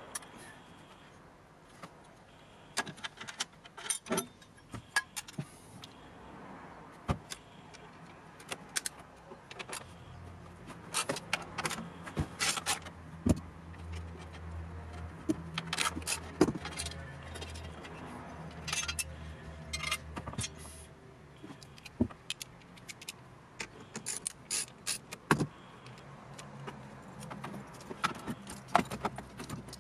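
Metal hand tools clinking and plastic boot trim clattering as parts are lifted out of a car boot, with many scattered sharp knocks and clicks.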